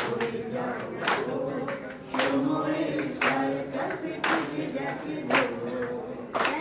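A group of voices singing a Bengali song unaccompanied, with hands clapping on the beat about once a second.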